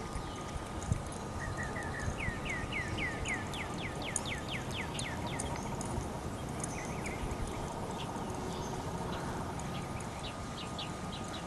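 Soft hoofbeats of a saddled horse walking on grass. Over them a bird sings a quick run of down-slurred chirps that climb in pitch, from about a second and a half to five and a half seconds in, with a few more chirps near the end.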